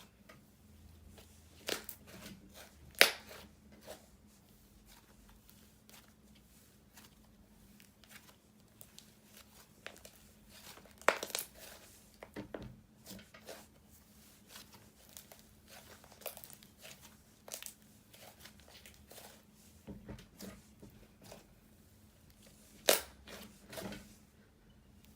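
Hands playing with a foam-bead cloud dough slime: irregular crackles and pops as it is pressed and stretched, with a few louder snaps about three seconds in, about eleven seconds in and near the end.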